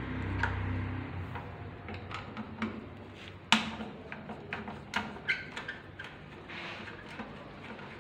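Scattered sharp metallic clicks and taps from hand work at a moulded-case circuit breaker and its cable terminals inside a steel distribution panel. The loudest click comes about three and a half seconds in, with a cluster of lighter ones around five seconds, after a low rumble in the first second.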